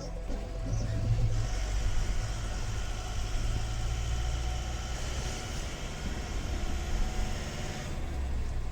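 A motor vehicle running, a steady low rumble with no clear change in pitch.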